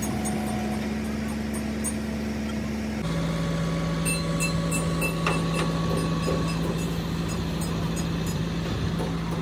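A motor running steadily with a low hum, which drops abruptly to a lower pitch about three seconds in, with faint ticking over it.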